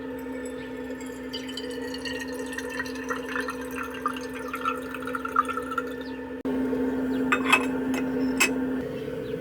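Liquid being poured or run into a container, over a steady low hum; a few sharp clinks near the end.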